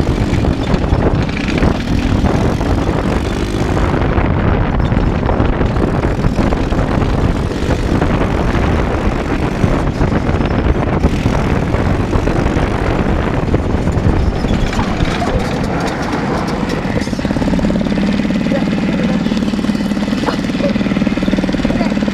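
Off-road go-kart's small engine running loudly and unevenly, settling into a steadier note in the last few seconds.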